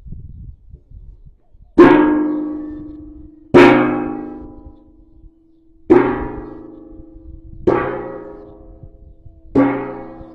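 A resonant percussive object is struck five times, about two seconds apart, each strike ringing out and fading slowly. Noises like this are used to get a horse used to sudden sounds.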